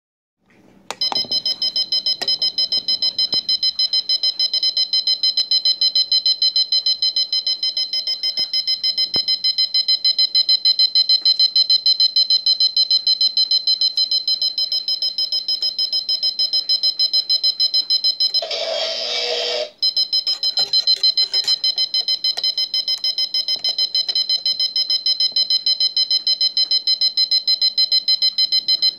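Buzz-wire alarm clock sounding its electronic alarm: a loud, high-pitched beep pulsing rapidly, several times a second. About eighteen and a half seconds in, it gives way for about a second to a harsher, rasping buzz, the game's signal that the loop has touched the wire, then the beeping resumes.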